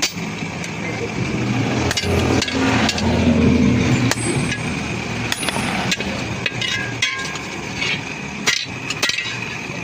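Hammer blows on metal during forging, struck at irregular intervals over a steady hum.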